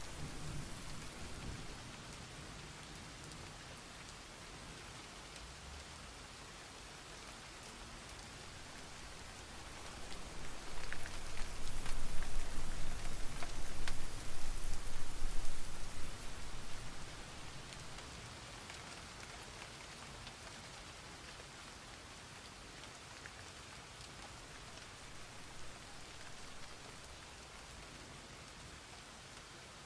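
Steady rain falling on still water, a dense patter of drops on the surface. It swells louder for several seconds around the middle, then eases back to its earlier level.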